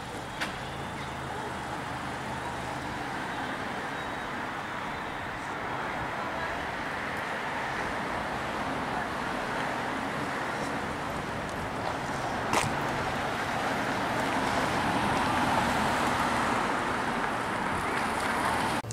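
Street traffic: cars and a pickup truck driving past on the road, a steady rush of tyre and engine noise that swells louder in the second half. Two brief sharp clicks stand out, one right at the start and one about twelve seconds in.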